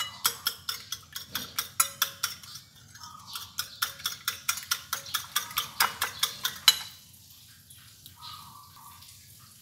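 Wire whisk beating egg and milk batter in a ceramic bowl, its wires clicking against the bowl in a quick, even rhythm of several strokes a second. There is a brief pause about three seconds in, and the whisking stops about seven seconds in.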